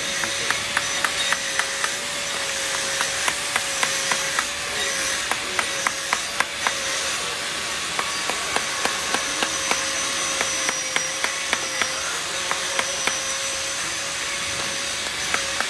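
Hand chisel chipping at a block of ice: a run of sharp, uneven ticks, roughly three a second, over a steady hiss. A faint wavering hum sits in the background.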